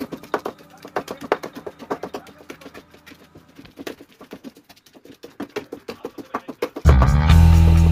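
A wooden masher pounds cooked chicken and chana dal in a steel pot, giving rapid knocks about four or five a second as the mixture is mashed together into shreds. Loud background music comes in suddenly near the end.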